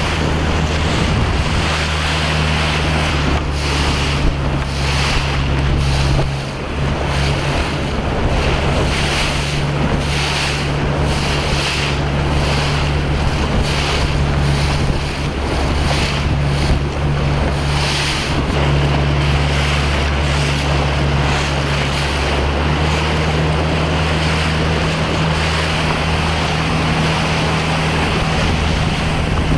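Wind buffeting the microphone over choppy water, with waves splashing against a moving boat. A steady low drone of a motorboat engine runs underneath.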